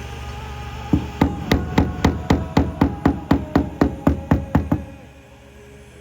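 Rapid, even hammer taps on a car's quarter panel during paintless dent repair, about four a second for nearly four seconds, stopping just before the end.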